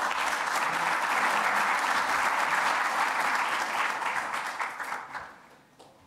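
Audience applauding at the close of a talk, fading away about five seconds in.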